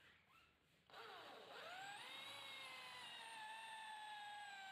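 Electric hand drill starting about a second in, its motor whine rising as it spins up, then running steadily with a slowly sagging pitch as the bit bores into the wooden handle block.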